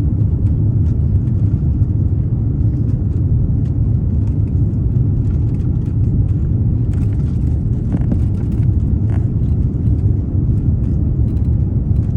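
Steady low rumble inside a moving vehicle, with a few faint clicks and knocks.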